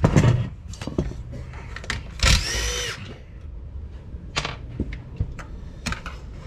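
A cordless drill-driver spins briefly, for under a second, about two seconds in, its whine rising and then falling. Around it come scattered clicks and knocks of tools and parts being handled on the bench.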